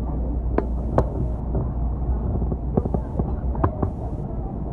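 Train running noise from the SL Paleo Express's 12-series coaches: a steady low rumble, with a few sharp clacks, loosely in pairs, as the wheels cross rail joints.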